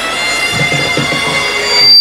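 Public-address feedback from the open stage microphone: a steady whistling tone that builds in loudness over a murmur of voices. Near the end a higher, piercing squeal takes over and becomes loud.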